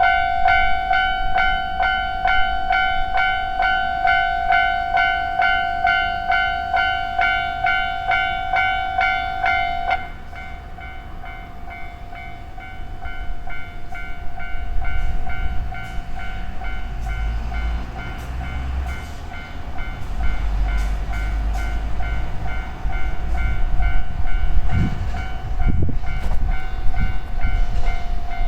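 Japanese railway level-crossing alarm ringing, an electronic bell struck about twice a second; about ten seconds in it drops to a softer level but keeps ringing. From about fourteen seconds in, a train passes through the crossing with a growing low rumble and wheel clicks.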